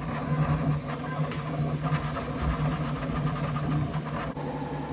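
Bambu Lab X1 Carbon 3D printer printing at its top 'ludicrous' speed: motors and fans whir with a steady hum while the print head makes rapid moves.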